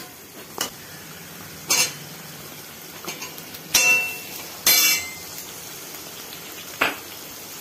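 Metal ladle clanking and scraping against an aluminium kadai as vegetables are stirred while frying in oil, over a steady faint sizzle. About five clanks, the loudest two near the middle, one with a brief metallic ring.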